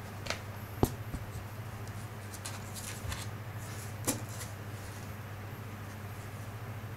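A kitten's paws and claws knocking, tapping and scrabbling on a hard diatomaceous-earth bath mat as it pounces and rolls: scattered sharp taps, the loudest just under a second in and another about four seconds in, with a cluster of lighter ticks in between, over a steady low hum.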